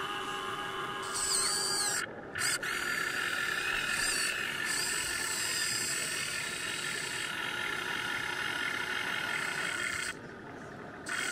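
Electric gear motors of a Huina 1580 RC excavator whining as the boom, arm and bucket dig sand. Higher whines start and stop and bend in pitch as each function is worked. The motors cut out briefly about two seconds in and go quieter near the end.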